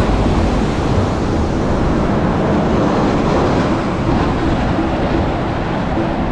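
Steady rush of road traffic and wind on a bridge, with no distinct single event.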